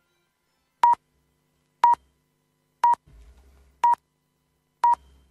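Radio hourly time signal: five short beeps of the same high pitch, one second apart, counting down to the full hour.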